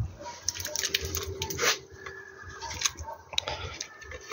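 Sliced bell peppers and tomatoes sliding off a wooden cutting board into a cast-iron kazan of boiling lamb broth: soft splashes and plops in the bubbling liquid, with scattered clicks.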